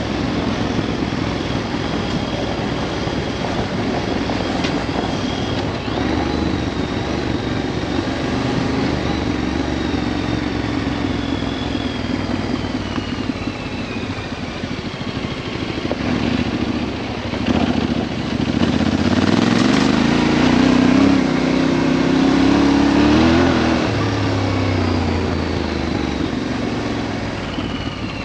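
Off-road motorcycle engine running while riding along a dirt track. Its note climbs and falls from about two-thirds of the way in, loudest as the bike accelerates.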